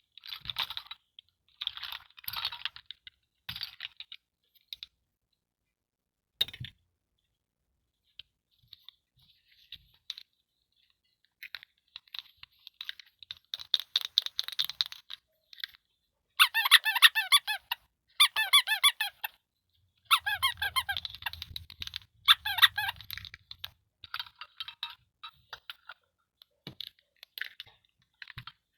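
Toys and packaging being handled, with intermittent squeaking as items are rubbed together. The squeaks come in short bursts and are densest and loudest in two runs past the middle.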